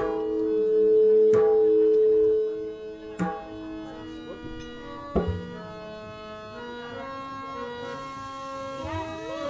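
Instrumental passage of a Marathi bhajan: a harmonium holds a loud note for about the first two seconds, then plays shorter notes, under a few sparse hand-drum strokes.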